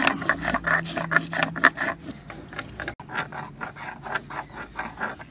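Coriander seeds being crushed on a flat stone slab with a rolling hand-held grinding stone (Bengali sil-nora), making quick rhythmic scraping and crunching strokes, several a second. The strokes are loudest in the first two seconds.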